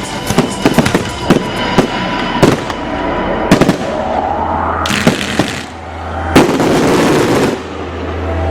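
Fireworks going off over music: a quick run of sharp bangs and crackles, then a rising whistle about four seconds in, followed by two long, loud bursts.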